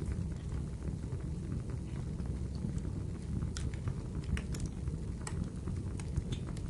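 Fireplace fire crackling: a steady low rumble of flames with scattered sharp pops and snaps, most of them in the second half.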